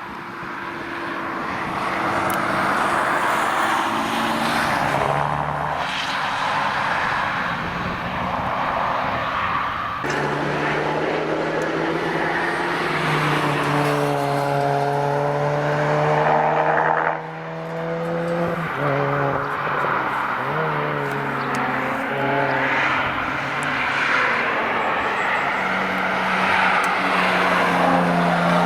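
Car engines accelerating along a race track, revving up and shifting through the gears. The revs drop sharply about 17 seconds in, then climb again toward the end.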